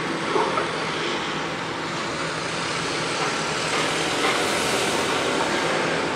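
Construction-site din: a steady mechanical and traffic rumble with a low hum, swelling about four seconds in, and a couple of light knocks near the start.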